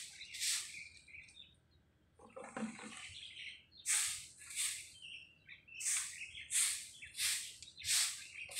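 Broom sweeping rough pavement in short, regular swishes, about one and a half strokes a second. The strokes pause about a second in, where a duller rustle comes before the sweeping picks up again.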